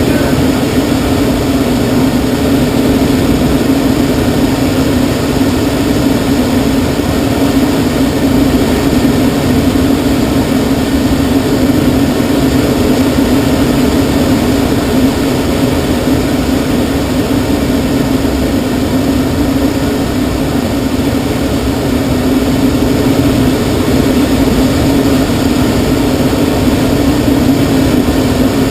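Steady rush of air over a glider's cockpit and canopy in unpowered flight, with a constant low hum.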